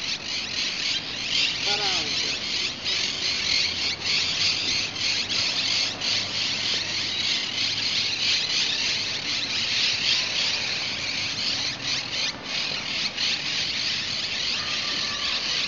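A loud, steady shrill chorus of insects buzzing without a break, with a short pitched call about two seconds in.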